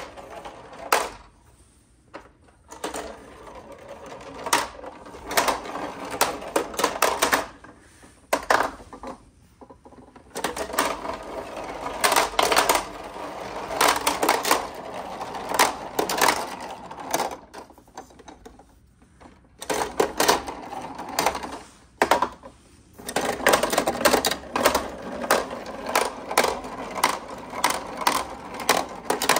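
Plastic balls rolling down the spiral ramps of a plastic ball-drop tower toy, clattering and clicking against the track and dropping into the base, in busy runs with two short lulls.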